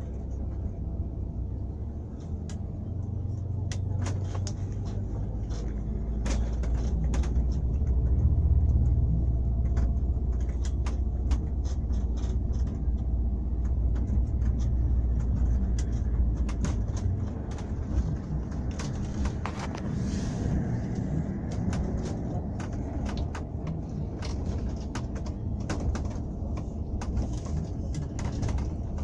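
Vehicle ride with a low engine and road rumble that builds over the first several seconds and eases later on. Frequent short rattles and knocks run through it.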